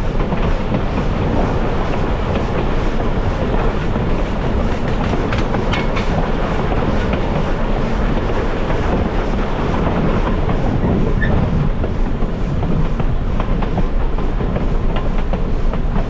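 Railway passenger car rolling along the track: a steady rumble of wheels on rail with the clickety-clack of rail joints.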